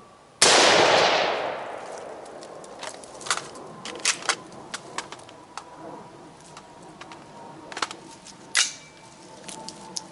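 A single AR-15 rifle shot about half a second in, its report trailing off over about a second and a half. Scattered small clicks and knocks follow, with a sharper knock near the end.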